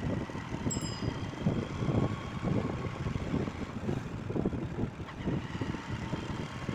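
Riding on a motorcycle: uneven wind rushing over the microphone together with the low rumble of the bike's engine and tyres on the road.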